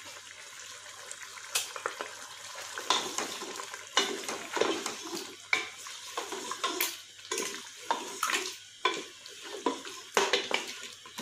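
A wooden spoon stirring mutton, ginger-garlic paste and oil in a metal pressure cooker pot. It knocks and scrapes against the sides in quick irregular strokes over a faint sizzle of frying.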